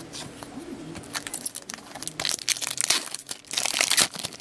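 Foil wrapper of an Upper Deck hockey card pack crinkling as it is handled and torn open. There are a few soft rustles at first, then a dense burst of sharp crackling in the second half.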